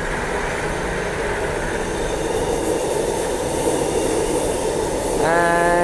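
Transperth A-series electric train passing, a steady, even noise of wheels on rail and running gear.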